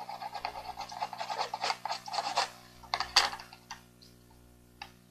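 Rapid back-and-forth shading strokes of a drawing medium rubbed on paper, with one louder stroke about three seconds in and fainter strokes after.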